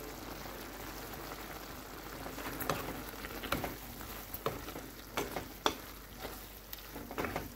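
Shelled mussels, onions and potato chunks sizzling gently in a frying pan. From about two and a half seconds in, a wooden spatula stirring them scrapes and knocks against the pan several times.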